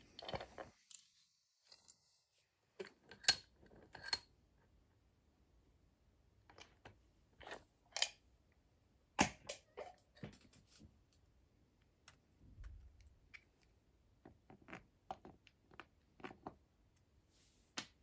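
Handling noise of a small bench vise and a brass euro cylinder lock being loosened, moved and set down on a wooden table: scattered clicks and knocks, the loudest two sharp ringing clinks about three and four seconds in.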